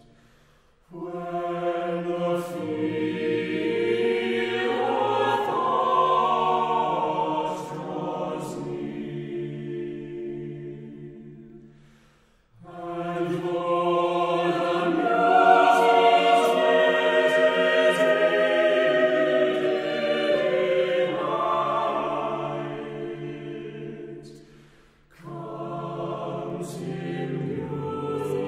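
Unaccompanied SATB mixed choir singing in English, several voice parts in sustained harmony. Three phrases each swell and die away, with short breaths of near silence between them, and the last phrase is just rising at the end.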